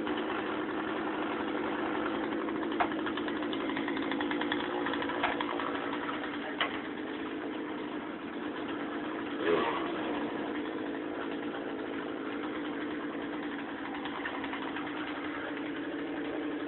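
An engine idling steadily, with a few faint short clicks or knocks over it.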